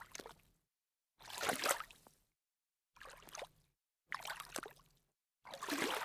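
A sneaker stepping into shallow water: a series of separate splashy steps, about one every second and a bit, each with a short wet trail and silence between.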